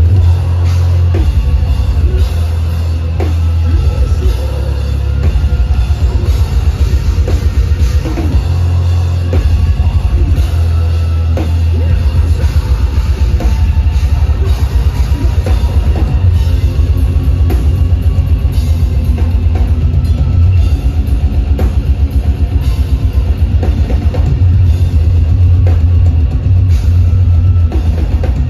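Live deathcore band playing loud: heavy distorted electric guitar over fast, pounding drums with rapid bass-drum beats, the low end dominating.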